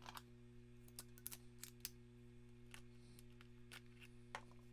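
Faint scattered clicks of small parts being handled: a metal chain-tensioner plate and screwdriver against the chainsaw's plastic body, over a low steady hum.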